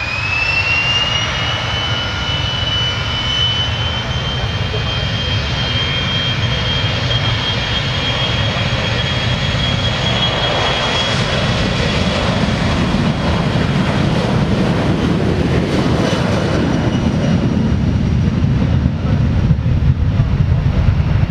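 Boeing 737-400's CFM56 jet engines at takeoff thrust on the takeoff roll. A high whine rises over the first two seconds and then holds steady over a loud roar, and a deep rumble grows in the second half as the jet passes and rotates.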